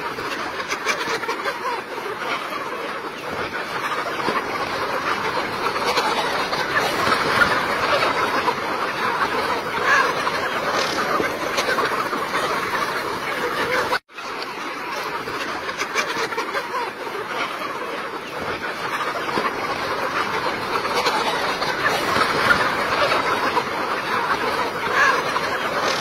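A crowded flock of chickens, hens and roosters together, clucking in a continuous, dense chatter. The sound drops out for an instant about halfway through.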